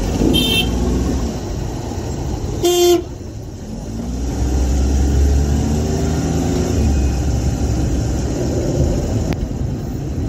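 Road traffic: a vehicle horn gives one short, loud honk about three seconds in, after a fainter high toot near the start, over the low running of engines, one of which rises in pitch as it speeds up through the middle.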